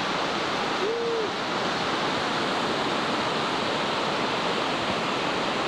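Muddy floodwater rushing fast through a swollen creek channel: a steady, even roar of water.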